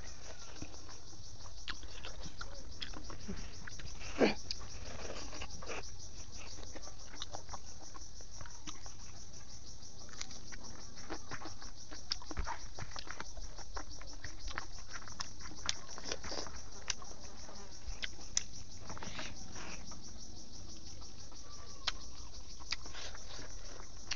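Steady high chirring of insects, with a person's chewing and lip-smacks over pork intestines eaten by hand showing as short sharp clicks here and there, the loudest about four seconds in.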